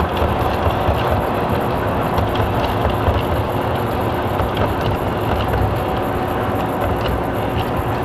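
O-scale model trains running on the layout: a steady rumble of wheels and motors on the track, with light clicks scattered through.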